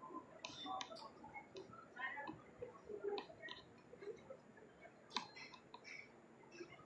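Scattered small clicks and ticks, the sharpest about half a second in and a little after five seconds, over a faint murmur of people waiting in a queue.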